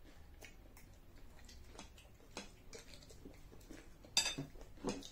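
Spoons and forks clicking and scraping lightly against bowls and plates as people eat, with one sharper clink about four seconds in.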